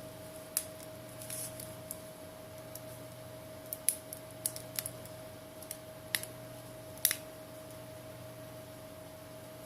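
A dozen or so small, sharp clicks and ticks at irregular intervals as a pry tool works the broken display panel loose from a Samsung Galaxy S7's frame. The two loudest come about four and seven seconds in, and a steady hum runs underneath.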